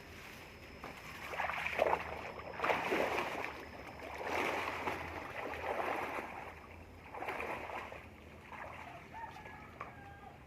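Water splashing and sloshing in several irregular bursts, the loudest in the first half.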